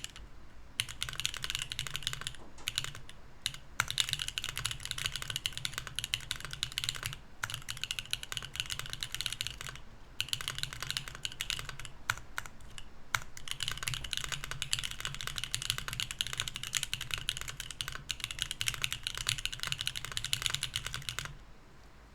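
Fast typing on a Mercury65 mechanical keyboard with BSUN Anya switches in an aluminum plate, with no foam and tuned stabilizers: dense runs of keystroke clacks broken by brief pauses. The typing stops about a second before the end.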